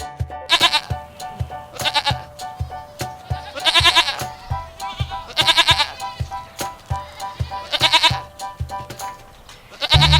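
A goat bleating repeatedly, about six wavering calls a couple of seconds apart, over background music with a steady beat.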